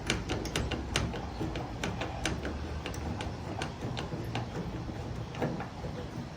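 Ratchet wrench clicking as it is worked back and forth, a series of sharp clicks two or three a second at an uneven pace.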